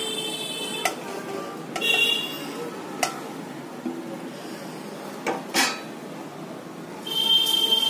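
Steel plate and steel bowl clinking and scraping together as shredded chicken and cabbage filling is pushed off the plate by hand, with a few sharp knocks and spells of high metallic ringing.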